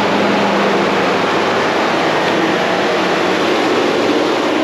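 Electric radiator cooling fans of the supercharged Silverado running with a loud, steady rush. A low hum under it fades out about a second in.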